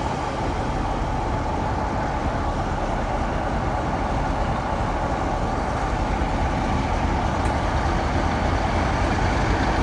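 Two British Rail Class 47 diesel locomotives' Sulzer V12 engines running steadily, growing a little louder near the end.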